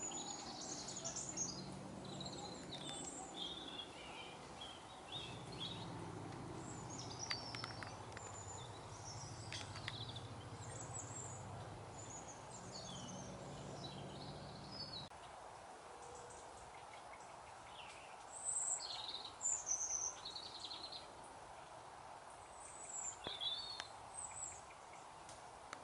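Small birds chirping and singing outdoors, many short calls scattered throughout, a few louder ones near the end. A steady low hum lies underneath and stops about halfway through.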